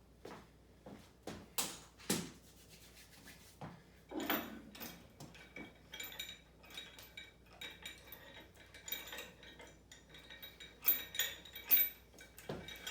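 Metal weight plates and lifting hardware knocking and clinking as they are handled, with a short metallic ring after many of the clinks and two louder clanks near the end.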